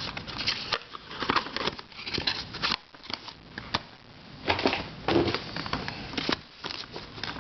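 Plastic twisty puzzles being handled, with irregular clicks and light knocks of plastic pieces.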